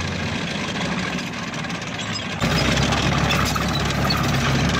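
BMP-1 infantry fighting vehicle's V6 diesel engine running steadily as the tracked vehicle drives, a low hum under a noisy wash. The sound grows louder about halfway through.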